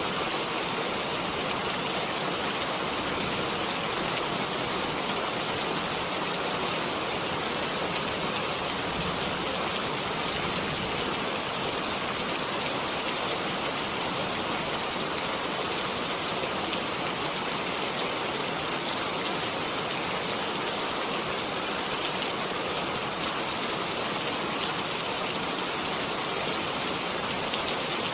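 Steady rain falling, an even hiss of many drops with fine pattering, unchanging in level throughout.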